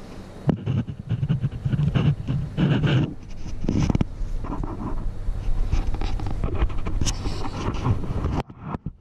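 Handling noise of a camera being moved and set down on a wooden counter: irregular rubbing, bumping and knocking over a low rumble on the microphone. It stops abruptly near the end.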